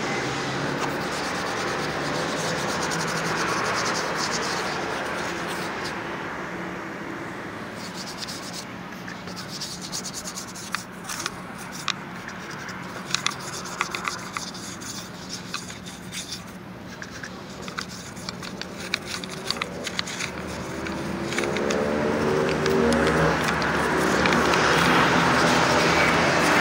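Plastic brush scrubbing soapy water around the bead of a scooter rear tyre (Maxxis S98 Plus) on its rim: steady scratchy rubbing with quick strokes. The soapy water is brushed on to check the freshly mounted tyre's bead for air leaks. A low traffic drone grows louder near the end.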